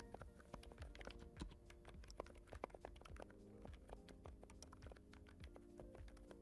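Typing on a NuPhy Halo65 V2 mechanical keyboard with Silent Blush Max switches: soft, quiet keystrokes in quick, irregular succession.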